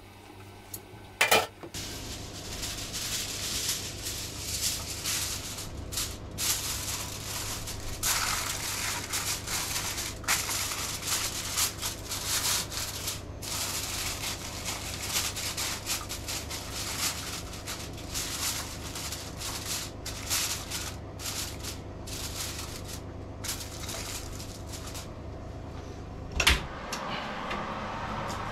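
Aluminium foil crinkling and crackling as it is pulled from the roll and pressed down over a glass baking dish, over a steady low hum. A sharp knock comes about a second in and another near the end.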